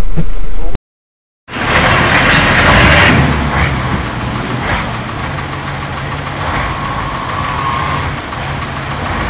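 A motor vehicle's engine running under broad road noise. A brief silence about a second in breaks the sound; after it the noise is loudest for about a second, then settles steady.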